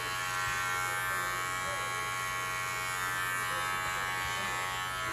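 Electric hair clippers running with a steady buzz as they are worked over a man's short hair at the back of the head.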